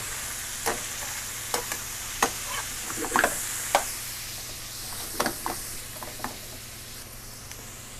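Shrimp sizzling in hot olive oil in a metal sauté pan as they are flipped with a metal spatula: a steady frying sizzle with scattered sharp clicks and scrapes of the spatula against the pan. The spatula strokes stop about six seconds in, and the sizzle carries on alone.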